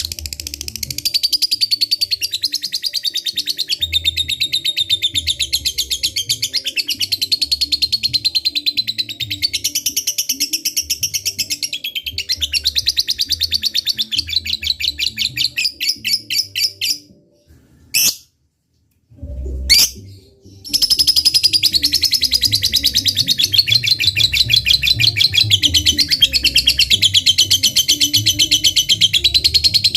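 Lovebird 'ngekek': a long, fast, rapid-fire chattering trill of high notes. It breaks off a little past halfway for a few seconds, with a couple of short calls, then starts again.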